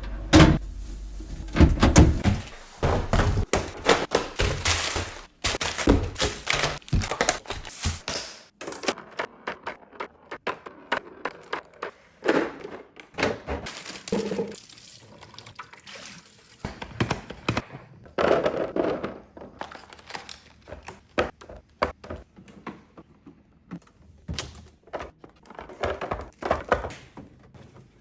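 Groceries and containers being set down and shuffled around on refrigerator shelves: a long, irregular run of thunks, knocks and clatter.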